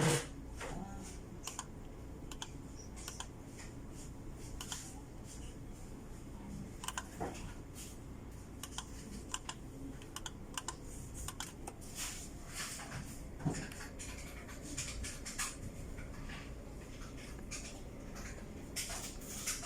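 Computer keyboard being typed on: irregular, scattered keystroke clicks, busiest around twelve to thirteen seconds in and again near the end.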